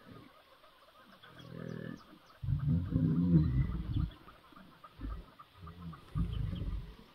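Deep growls and moans in several bursts, the loudest lasting over a second from about two and a half seconds in: the sounds of the kill as two male lions hold a downed buffalo in a suffocating muzzle bite.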